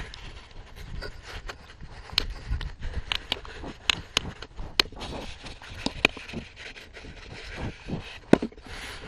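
Goats nosing and nibbling at the camera: close rubbing and scraping against it, with irregular sharp clicks and knocks.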